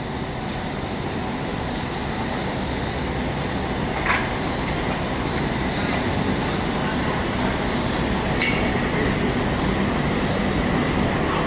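Cable production line machinery running: a steady mechanical drone that slowly grows louder, with two short squeals a few seconds apart.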